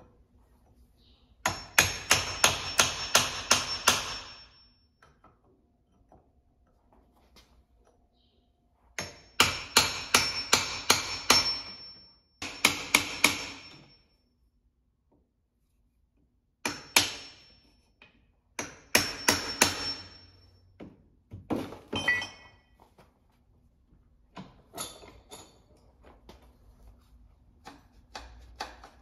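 Hammer driving a chisel against the end of a 7.3 Powerstroke oil cooler clamped in a bench vise, knocking the end off the cooler core. Several runs of quick metal-on-metal blows, about four a second, with pauses between them and lighter taps near the end.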